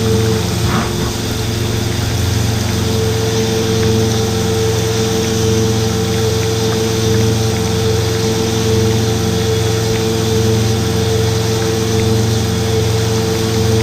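CNC milling machine running steadily, its spindle and motors giving an unchanging mechanical hum with a steady mid-pitched tone.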